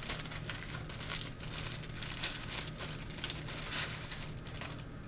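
Packaging being handled and unwrapped by hand, with irregular crinkling and rustling throughout, over a low steady hum.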